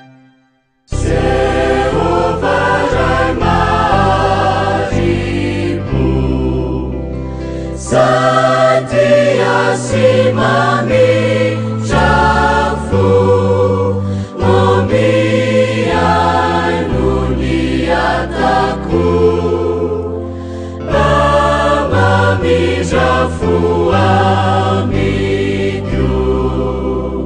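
Mixed choir of young women and men singing a Malagasy Protestant hymn in parts, coming in after about a second of silence.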